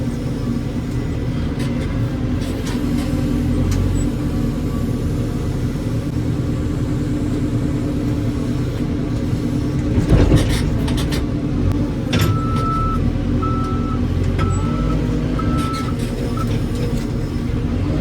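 Heavy diesel engine running steadily, with one loud clunk about ten seconds in. Then a reversing alarm beeps four times in a row.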